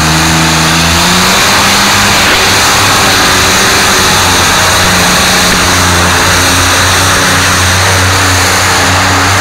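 Multi-engine modified pulling tractor running flat out at high revs, its engines' note holding high and wavering slightly as it drags the weight sled down the track.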